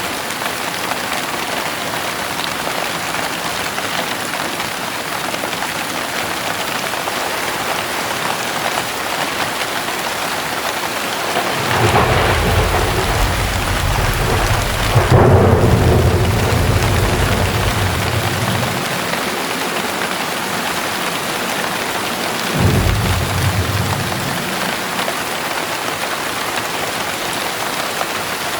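Heavy rain falling steadily, with a long roll of thunder rumbling through the middle and a shorter thunder rumble later on.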